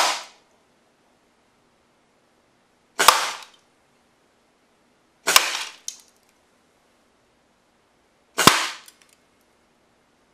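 Air rifle fired four times, each shot a sharp crack, spaced about two to three seconds apart, as pellets strike a plastic carbon monoxide detector case. A few short rattles follow some of the shots.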